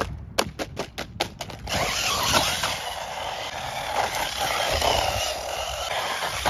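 JJRC Q130 brushless RC truck: a quick run of sharp knocks in the first second and a half as it tumbles, then the steady rush of its motor and tyres as it drives on pavement.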